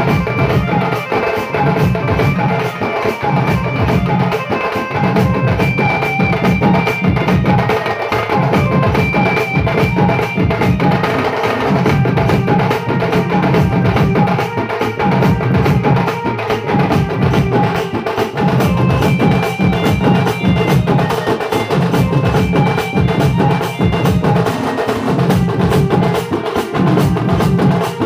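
Dulduli folk percussion ensemble: a large barrel drum and smaller stick-beaten barrel drums playing a dense, driving rhythm with clashing hand cymbals. Deep drum beats come in short runs about every second and a half.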